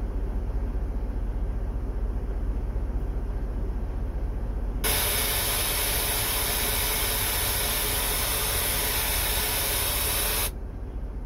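Steady low engine rumble heard inside a truck cab. About five seconds in, a loud steady hiss starts abruptly and holds for about five and a half seconds before cutting off sharply.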